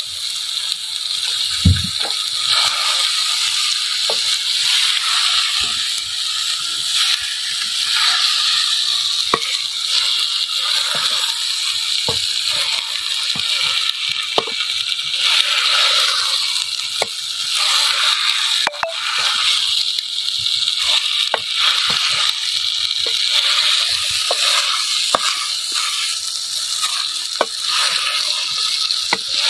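Cubed potatoes frying in a clay pot over a wood fire, a steady sizzle under the knocks and scrapes of a wooden spoon stirring them against the pot. A dull knock sounds about two seconds in.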